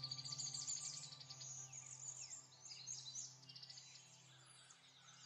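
Quiet background music of steady held tones, with birds chirping and trilling over it.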